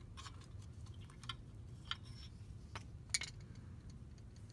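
A few light metallic clicks and clinks as a steel spring is worked off the parking-brake drum shoes, the loudest about three seconds in.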